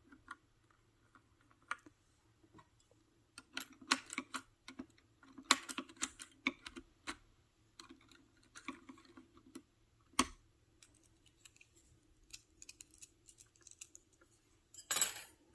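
Plastic keycaps clicking and tapping as they are pressed onto and pushed down on a Freewrite Alpha's flush keyboard, in irregular clusters of small clicks. There is one sharper click about ten seconds in and a louder burst of clicking near the end.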